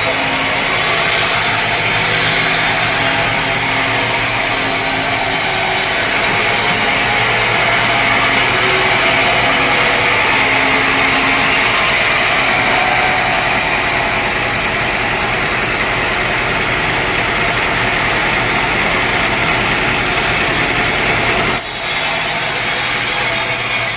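Sawmill saw cutting through dense teak wood, a loud continuous sawing noise over the hum of the machine's motor, with a brief dip near the end.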